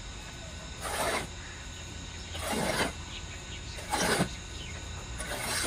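Shovel blade scraping across a concrete floor while dry cement and sand are turned and mixed, with four gritty scrapes about a second and a half apart.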